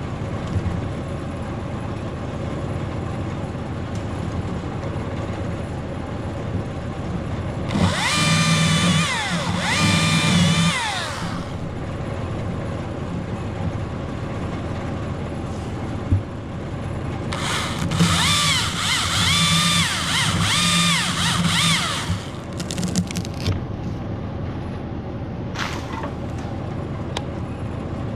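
Electric chainsaw cutting fir limbs in two runs, its high motor whine dipping and recovering in pitch as the chain labours in the wood. Between the runs there is a single sharp knock, over a steady low rumble.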